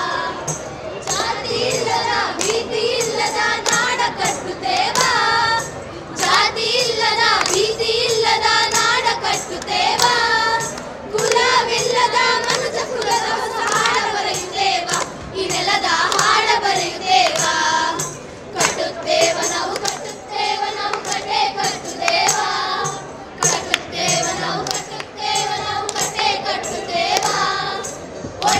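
Group of young women singing together, keeping time with hand claps and beats on a hand-held frame drum.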